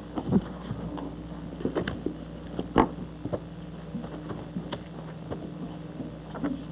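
Classroom room sound: a steady electrical hum under scattered knocks and clicks from children shifting at their school desks, the sharpest knock nearly three seconds in.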